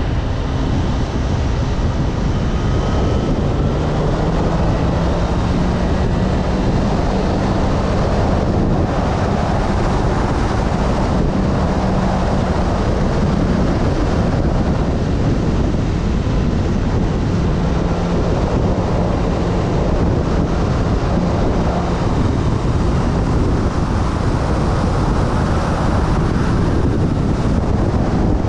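Heavy wind buffeting the microphone of a motorcycle at road speed, with the engine running steadily underneath. The engine note rises a little a few seconds in, then holds.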